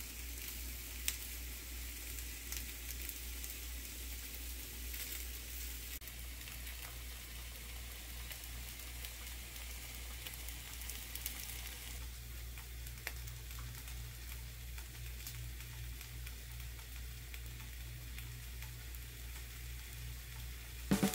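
Steady faint hiss with scattered light crackles and ticks over a low, slightly pulsing hum: the quiet running background of a workroom.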